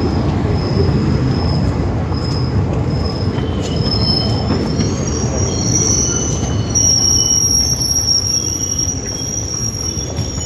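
Passenger train's sleeper coaches rolling slowly past with a steady low rumble and high-pitched metal squealing from the wheels as the train brakes into the station. Short squeals come early; longer, overlapping squeals set in about halfway through.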